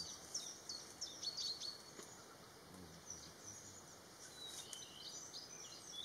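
Birds chirping: quick, high, falling notes repeated in short runs, fairly faint, over a soft background hum.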